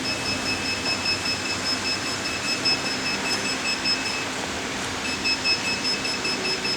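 AC recovery and recharge machine beeping: a rapid, high electronic beep that pauses about four seconds in and then starts again, over the steady hiss and hum of the running machine.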